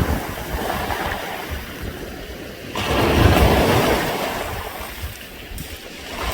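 Waves washing up a beach of small round pebbles and draining back through them, the rolling stones giving a rattling hiss. A new wave surges in sharply about three seconds in, and another near the end.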